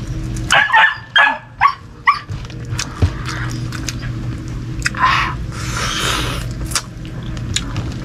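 A dog barking in several short, sharp barks in the first two seconds, then quieter.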